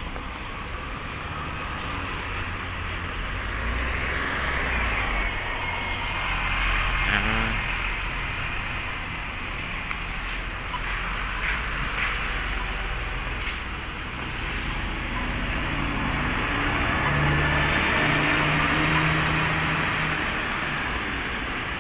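City street traffic: vehicles passing on the road, swelling and fading, loudest in a long pass with a low engine hum near the end.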